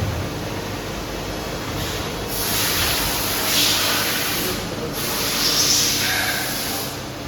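Mori Seiki MV-Junior vertical machining center running with a steady hum, broken by two hissing sprays of about two seconds each, starting about two seconds in.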